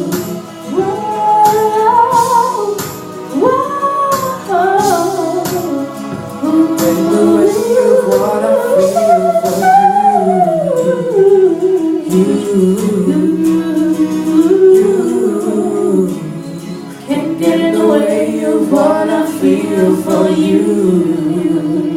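Live duet singing: long held and sliding wordless vocal runs, a female voice prominent, as the song winds to its end.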